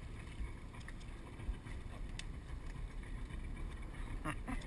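Steady low rumble of wind on the microphone aboard a small open boat, with a few faint clicks and a brief higher-pitched sound near the end.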